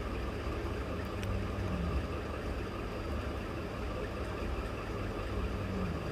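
A steady low background hum, with a few faint snips of scissors cutting through a paper pattern, one about a second in.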